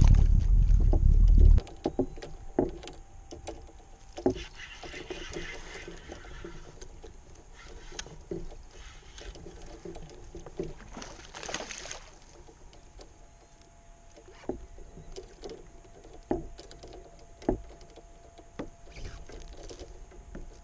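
Scattered light knocks and taps against a plastic fishing kayak's hull as the angler moves and handles his gear, over faint water sounds. A loud low rumble at the start cuts off suddenly about a second and a half in.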